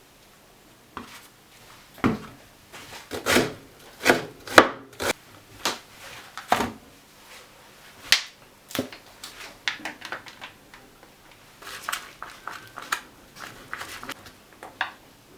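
Kitchen knife chopping green onion on a cutting board in irregular sharp knocks. Then, from about halfway through, lighter clicking and scraping as natto is stirred with soy sauce and chopped green onion.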